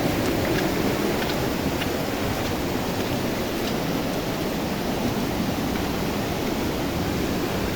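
Steady, loud rush of a flowing river, with a few faint ticks in the first couple of seconds.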